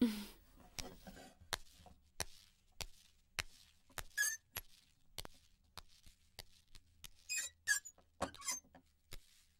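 Footsteps on a hard floor, a steady, faint tap about every 0.6 s as people walk away, with a few short squeaks about four seconds in and again near eight seconds.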